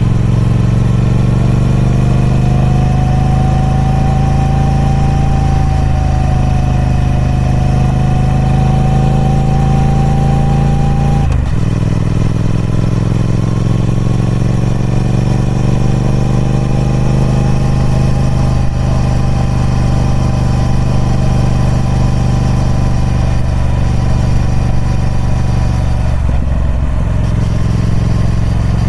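Triumph Speed Twin 1200's 1200cc parallel-twin engine on its stock exhaust, running at a steady moderate pace with slight slow changes in pitch. The engine note breaks briefly twice, about eleven seconds in and again near the end.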